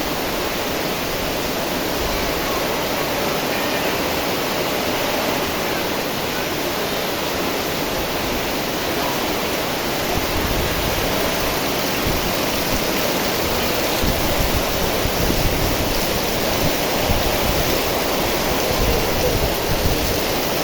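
Torrential rain pouring down in a strong wind, a dense steady hiss. In the second half the wind gusts harder, with low rumbles of wind on the microphone.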